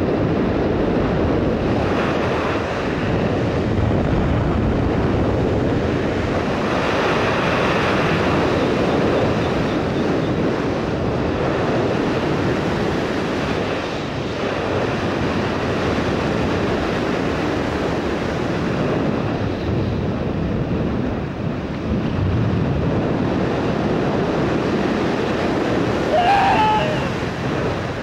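Wind rushing over a helmet camera's microphone under an open parachute canopy during the descent: a steady, loud noisy rush. Near the end a short, wavering high-pitched sound cuts through it.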